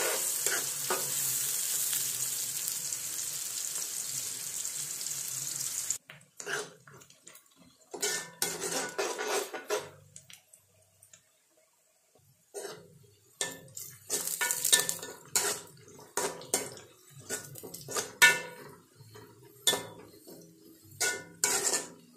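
Chopped onions sizzling in plenty of hot oil in a metal kadai, a steady hiss that cuts off abruptly about six seconds in. Then a metal ladle scrapes and clinks against the pan in short strokes as the onions are stirred while they brown, with a pause of a couple of seconds partway through.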